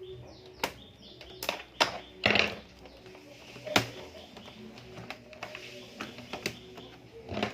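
Scattered sharp clicks and taps of a screwdriver and plastic parts while the Dell Inspiron N4050 laptop's last fastener is worked loose.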